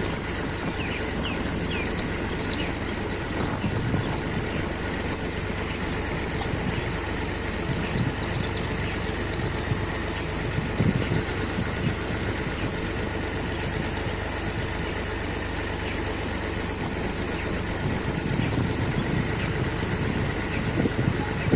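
Farm tractor engine running steadily as the tractor drives along a dirt track, with a few short knocks and rattles from the bumps.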